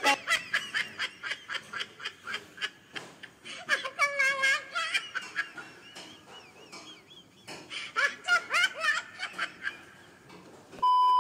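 Laughter in quick rhythmic bursts, with stretches of wavering higher-pitched sound. Near the end, a short steady beep.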